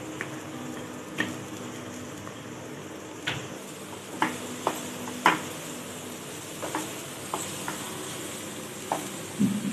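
Freshly chopped onions sizzling in hot oil with spice mix and gram flour in a pan, stirred with a wooden spatula that knocks and scrapes against the pan about ten times.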